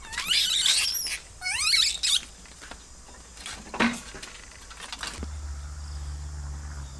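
Kitten crying out twice in loud, high-pitched meows that rise and fall, each about a second long. A click follows, then a steady low hum from about five seconds in.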